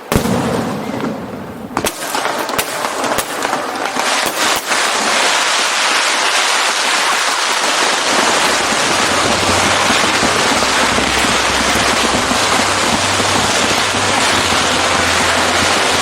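Aerial fireworks: a few separate sharp bangs, then from about five seconds in a dense, continuous crackle of many shells bursting together.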